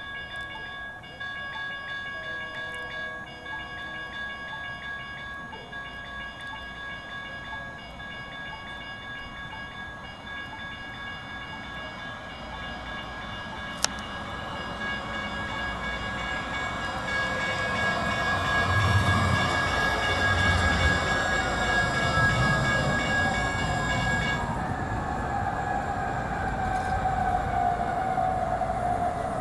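TriMet MAX light-rail train approaching and rolling past at low speed, towing a broken-down Type 5 car whose brakes have been released. It grows steadily louder, with low thumps near its loudest and a whine that falls in pitch as it goes by. A steady high whine runs underneath and cuts off suddenly about 24 seconds in, and there is a single sharp click about 14 seconds in.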